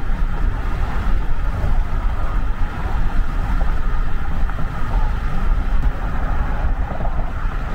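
Steady road and wind noise of a car moving at highway speed: a deep rumble with a rushing hiss over it.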